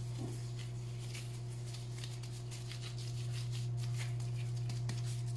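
Disposable plastic gloves crinkling and rustling as hands round a ball of soft pizza dough, faint and irregular. A steady low electrical hum runs underneath.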